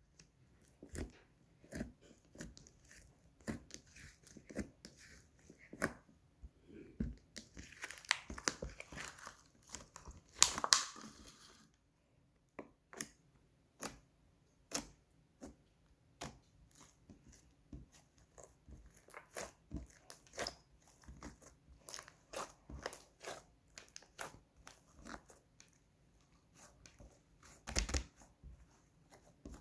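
White slime being squeezed and stretched by hand, giving many short sharp pops and crackles. The crackling grows denser from about 7 to 11 seconds in, and there is one louder pop near the end.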